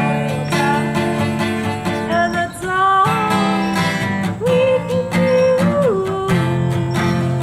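Acoustic guitar strummed steadily, with a voice singing a melody over it in long held notes.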